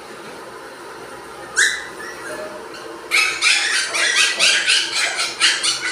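Puppies yelping and yipping while play-fighting: one sharp yelp, then a fast run of high-pitched yips from about halfway through.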